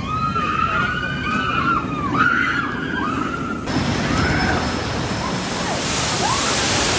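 High, wavering squeals from the Steel Hawg steel coaster train for about three and a half seconds. Then the Rocky Rapids log flume: a log boat splashing down the chute into the water, with a rushing, splashing hiss that swells near the end.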